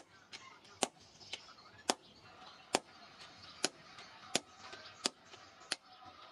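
Hand hammer striking a rusty steel bearing ring held in tongs on a steel post anvil, with sharp metallic blows about once every three-quarters of a second, while the ring is forged toward a machete blade.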